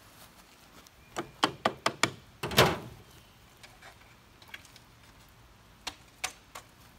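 Light clicks and knocks from handling a metal tin-can hobo stove, with one louder clank about two and a half seconds in, then a few scattered clicks.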